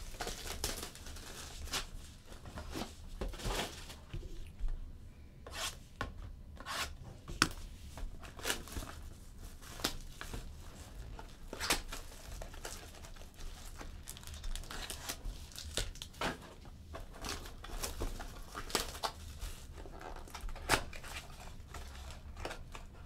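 Clear plastic shrink-wrap crinkling and tearing as it is pulled off a sealed trading-card box by hand, in many short, sharp crackles.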